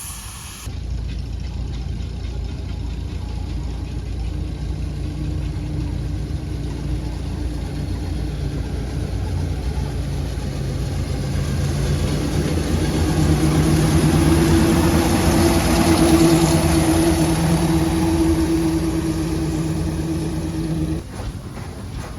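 A vehicle engine running steadily, growing louder over several seconds, then cut off abruptly near the end.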